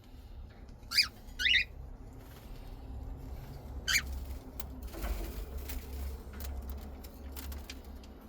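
Cockatiel giving three short, sharp chirps within the first four seconds, followed by a few seconds of rustling and light scratching.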